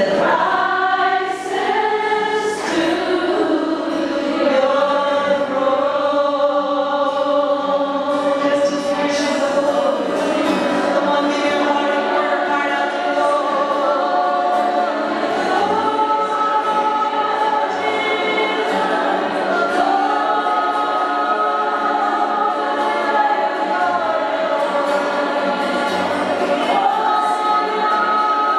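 Worship singing by a group of voices, holding long, slowly moving notes, with an acoustic guitar accompanying.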